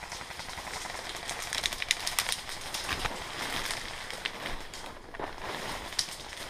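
Footsteps crunching through dry leaf litter and brush rustling against clothing and the rifle as a player walks through woodland undergrowth, with irregular small cracks of twigs and leaves.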